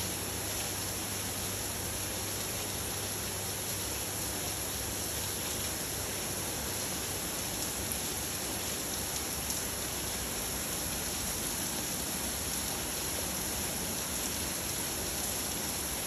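Rain falling steadily, an even unbroken hiss.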